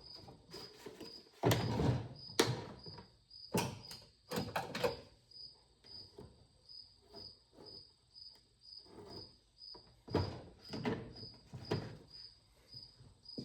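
Irregular clicks, knocks and clunks of hand tools being picked up and handled, with a cricket chirping steadily about twice a second behind them.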